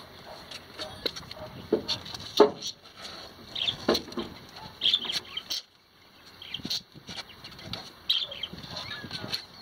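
Young kittens scrabbling at the sides of a cardboard box and pattering on a concrete floor: irregular small clicks, scratches and knocks, the loudest about two and a half seconds in, with scattered short high-pitched cries.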